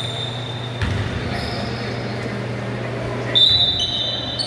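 Indoor basketball game sounds in a large hall: a ball thud about a second in, and high-pitched sneaker squeaks on the court. The loudest squeak is a sharp squeal about three and a half seconds in.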